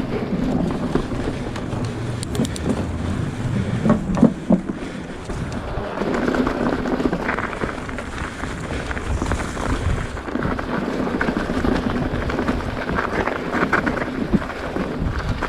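Wind buffeting an action camera's microphone: a steady rumbling rush, with a few knocks and rattles about two and four seconds in.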